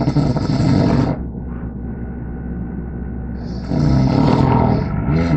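A person snoring: two loud, raspy snores about three and a half seconds apart, each lasting a little over a second.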